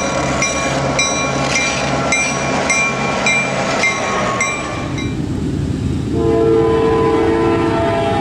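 Train noise with a short high ringing strike repeating about twice a second, which stops a little before halfway. About six seconds in, a locomotive air horn starts one long, loud chord that is still sounding at the end.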